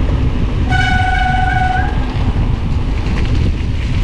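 Steady wind rumble on the microphone while riding, with one held hooting tone lasting about a second, starting just under a second in.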